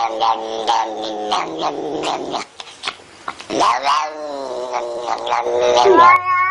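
Domestic cat caterwauling: two long, drawn-out wavering yowls with a short break between them, the second sliding down and then back up in pitch.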